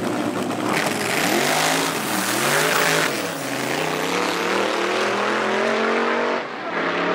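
Drag racing car engine at full throttle, accelerating hard, its pitch climbing through the gears with brief drops at each shift. The last and sharpest drop comes about six and a half seconds in.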